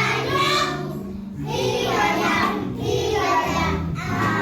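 Children singing together over a musical accompaniment with steady low notes, in short phrases broken by brief pauses.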